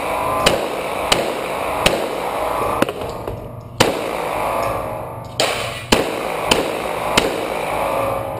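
Semi-automatic pistol firing a string of about nine shots, unevenly spaced from half a second to about a second and a half apart, each shot ringing briefly in the enclosed indoor range.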